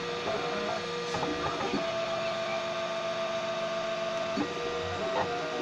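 Homemade 3D printer's stepper motors whining as the print head makes short moves, in held tones that jump in pitch or stop every second or so, with small clicks at the changes of direction.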